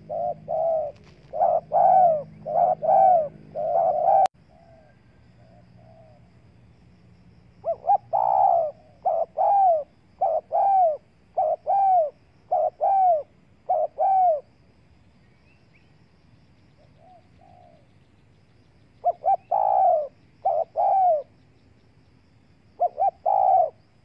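Spotted doves cooing: series of short, arched coos, about one and a half a second, in bouts of a few seconds with quiet pauses between them. There is a single sharp click about four seconds in.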